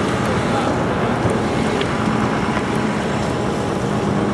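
Fire hose nozzle spraying water with F500 encapsulator agent onto burning lithium batteries: a steady rushing noise with a low hum underneath.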